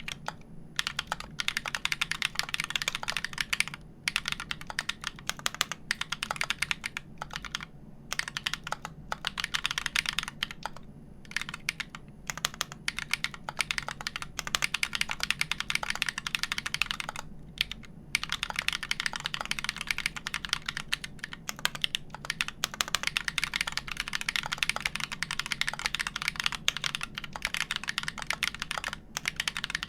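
Mechanical keyboard with Everglide Dark Jade Black switches on 63.5g slow springs, a wood plate and GMK keycaps being typed on in a steady, fast stream of keystrokes, with a few short pauses of about half a second.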